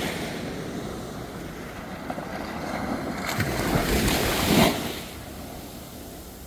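Sea waves washing onto a beach at night. One wave builds from about three seconds in, breaks near the middle and then recedes into a lower steady wash.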